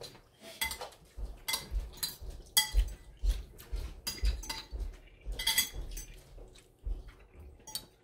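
Forks and spoons clinking and scraping against plates as several people eat, in irregular light clinks, with some dull low knocks.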